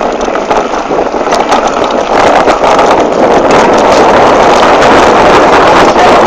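Wind buffeting the microphone of a camera on a moving mountain bike, mixed with rattling and small knocks from the rough trail. It gets louder about two seconds in.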